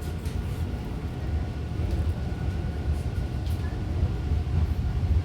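Toronto TTC subway train running on the track, heard from inside the car: a steady low rumble with a faint steady whine above it and a few light clicks.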